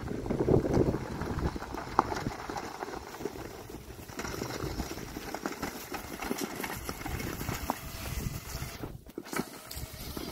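Wind buffeting the microphone over crunching and crackling from the tyres of a remote-controlled electric-converted mower chassis rolling over gravel and dry grass. The sound breaks off sharply for a moment about nine seconds in.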